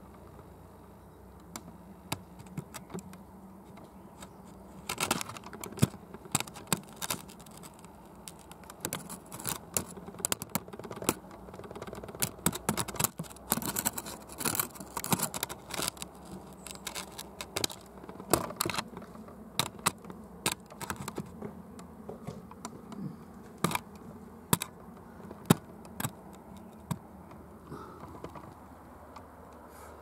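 A run of irregular sharp clicks and taps, thickest between about five and seventeen seconds in, over a faint low steady background.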